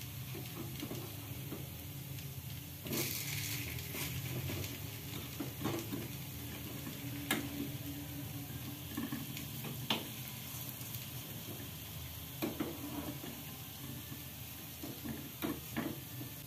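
Wingko cakes of glutinous rice and pumpkin sizzling in a greased multi-cavity wingko mould pan, with a handful of sharp clicks and scrapes from a fork turning the cakes.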